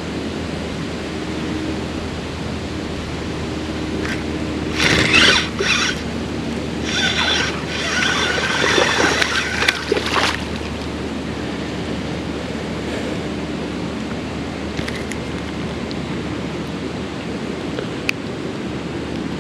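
Steady rushing of flowing creek water. Twice, from about five to ten seconds in, a louder, higher-pitched sound rises over it.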